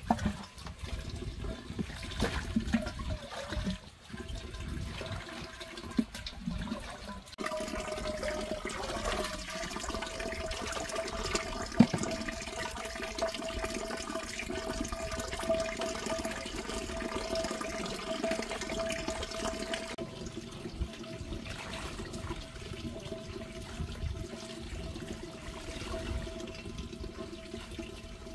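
Water running from a pipe into a large earthenware jar, with splashing and sloshing as clothes are hand-washed in a plastic basin. From about seven seconds in a steady pitched ring sits over the running water, and a single sharp knock stands out about twelve seconds in.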